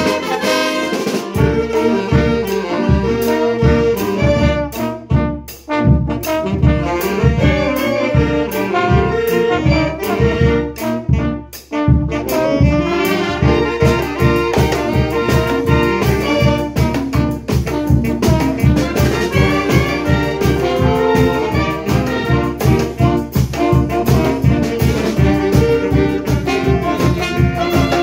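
A banda of saxophones, trombone and sousaphone playing an upbeat tune with a steady beat. The playing drops out briefly twice, about five and eleven seconds in.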